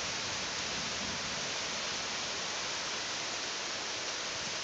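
Heavy thunderstorm rain falling, a steady even hiss with no thunder.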